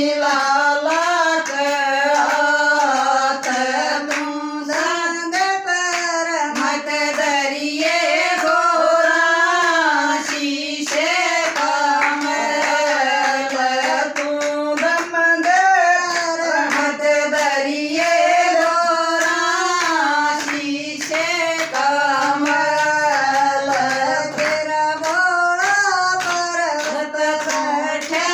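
A woman singing a Haryanvi bhajan to Shiva (Bhole), with hand claps keeping the beat throughout.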